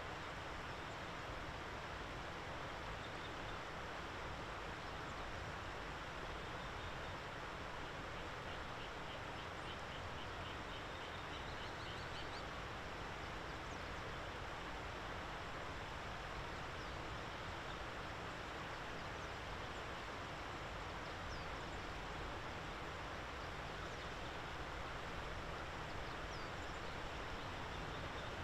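Faint common kestrel calls: runs of rapid, evenly repeated high notes, the longest lasting about four seconds a third of the way in and rising slightly in pitch at its end, over a steady outdoor background hiss.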